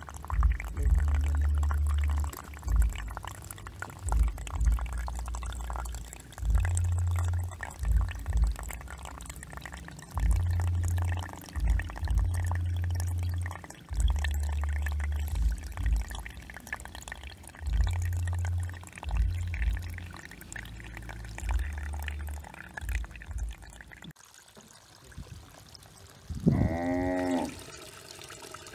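Water splashing and trickling with many small clicks, over heavy low rumbling that comes and goes. Near the end the water stops, and a single short pitched call that bends in pitch stands out.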